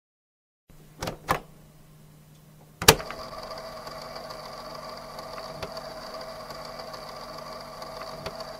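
Two sharp knocks about a second in, then a louder impact near three seconds, followed by a steady mechanical-sounding hum with a high, thin whine that is held until it cuts off suddenly.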